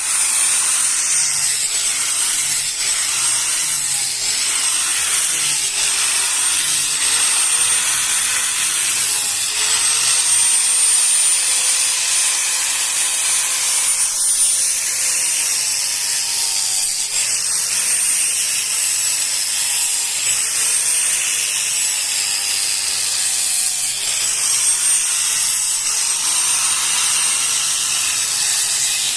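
A high-speed power tool cutting into wood: a steady high motor whine that dips in pitch and recovers again and again as the tool bites under load, over a continuous hiss of wood being abraded.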